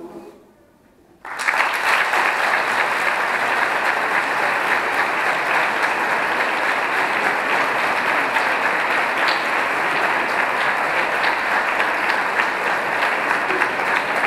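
The choir's last held chord dies away, and about a second in a large audience starts applauding suddenly, the clapping then keeping on at a steady level.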